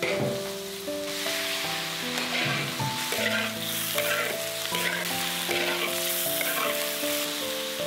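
Food sizzling in a large iron wok while a metal spatula stirs and scrapes it in repeated strokes, over soft background music of held notes.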